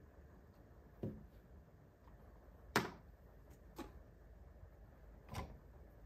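Four light knocks of an espresso cup and a small glass being set down on hard surfaces, the sharpest about halfway through.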